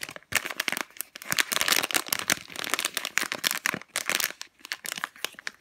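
Plastic packaging bag of a foam squishy toy crinkling as hands turn and squeeze it, in rapid, irregular crackles that come and go.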